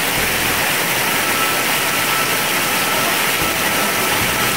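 Heavy rain on a corrugated metal roof, a steady hiss.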